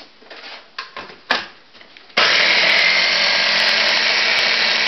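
A few knocks as the lid and motor head of a small electric food chopper are fitted onto its jar, then about two seconds in the motor starts and runs steadily, chopping a tuna salad mix.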